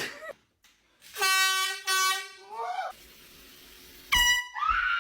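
Air horn blasting a steady, loud tone about a second in, cut into two quick parts, followed by a short cry from a startled person. Near the end comes a short, higher-pitched blast, then a rising, held high-pitched sound.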